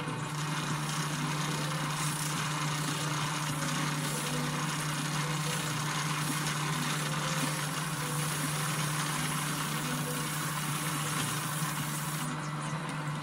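Power tool running steadily with an abrasive disc worked against a part, a constant motor hum under a continuous hissing rasp. The disc is already starting to fall apart.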